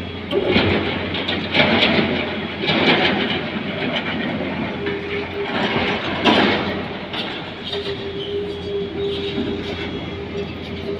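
Excavator working: engine running under repeated loud metallic clattering and scraping surges, with a steady tone that comes in about two-thirds of the way through and holds.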